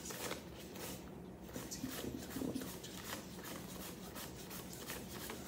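US paper banknotes being flicked off a stack one at a time from hand to hand in a hand count, a quick run of soft papery snaps.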